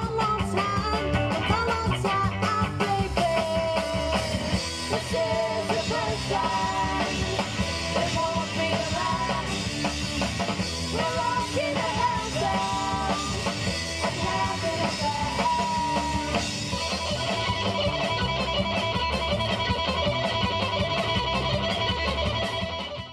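Rock music with guitar and a steady beat, with a melodic lead line, stopping abruptly at the end.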